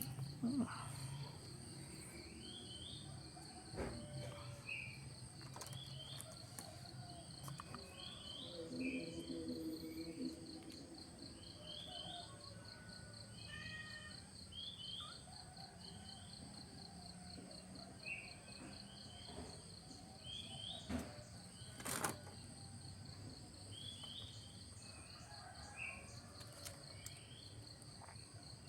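Outdoor ambience of a steady insect chorus with a fast pulsing trill. Over it a bird repeats short rising chirps about once a second, and there are a few sharp clicks, the loudest about 22 seconds in.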